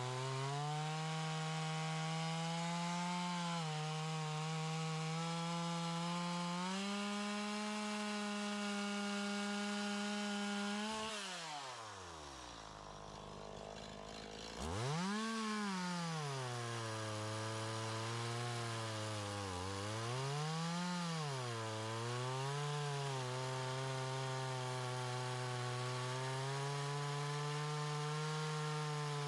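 Two-stroke chainsaw cutting wood at high revs, its pitch dipping and wavering as the chain loads in the cut. About eleven seconds in the throttle is let off and the engine falls to a low idle, then revs back up sharply about three seconds later and goes on cutting.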